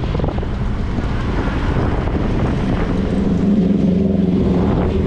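Moped engine running while riding, with wind and road noise; the engine note grows louder about three seconds in.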